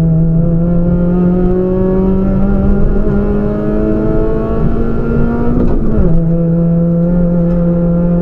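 Citroën Saxo VTS race car's 1.6-litre 16-valve four-cylinder engine under hard acceleration, heard inside the cabin. Its pitch climbs slowly, then drops sharply about six seconds in at a gear change and holds steady at the lower pitch.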